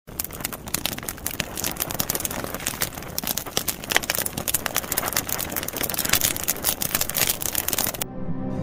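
Crackling fire sound effect: a dense rushing hiss thick with sharp pops and crackles, cutting off suddenly near the end.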